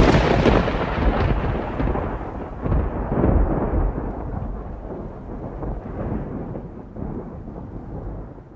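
Thunder: a loud clap rolling into a long deep rumble, swelling again a couple of times before slowly dying away.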